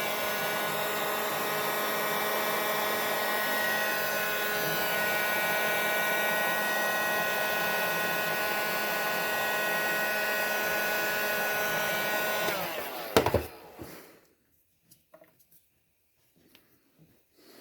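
Electric hot-air blower running steadily with a motor whine while heating a vacuum hose to soften it, then switched off about twelve seconds in and winding down. A knock follows just after, then only faint handling clicks.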